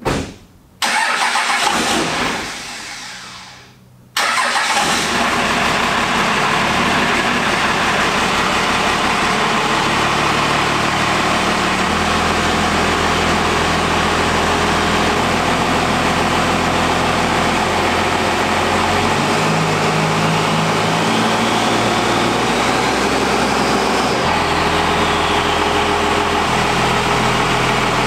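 A 12-valve Cummins inline-six turbo diesel in a 1996 Dodge Ram dually is cranked and started. After a first loud burst that dies away, it catches about four seconds in and runs at a steady idle. About two-thirds of the way through, a faint whistle rises and falls.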